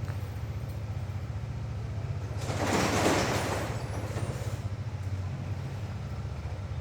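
Hero Xtreme 250R single-cylinder engine idling with an even low pulse, running without the tapping noise it was repaired for. About two and a half seconds in, a loud rushing noise swells for a second or so and fades.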